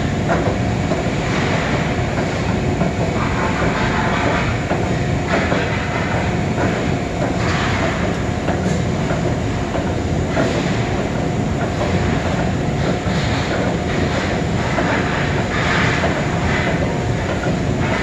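ERP 900 fridge-compressor cutter running, a compressor's sealed steel shell spinning in its chuck against the cutter as the shell is sliced open: a steady, loud mechanical din of rattling and metal grinding with a faint held tone.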